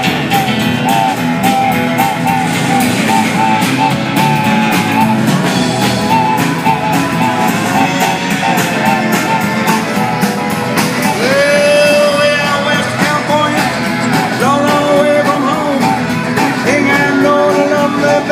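A rock band with guitars, upright bass and drums plays a driving train-rhythm groove while a wooden train whistle is blown into a microphone over it. The whistle gives quick repeated short toots through the first half, then longer held blasts past the middle.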